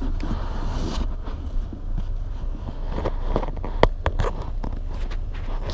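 Close handling noise from a camera being moved around inside a mascot costume's head: fabric rubbing and scraping over a steady low rumble, with a few sharp knocks about three to four seconds in.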